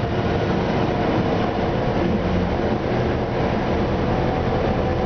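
Inside an Orion VII diesel transit bus under way: its Detroit Diesel Series 50 four-cylinder engine and Allison B400R automatic transmission running steadily under road noise, with a steady hum.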